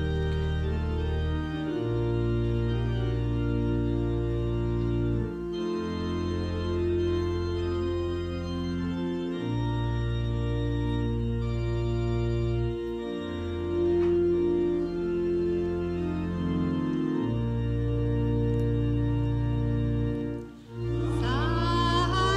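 Church organ playing slow, sustained chords, the bass note changing every few seconds, as a hymn introduction. Near the end, voices come in singing over the organ.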